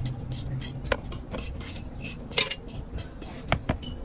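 Steel bar scraping and knocking through packed foundry sand, with several sharp metallic clinks and one longer scrape, as a sand mould is broken open around a fresh metal casting. A low steady rumble runs underneath.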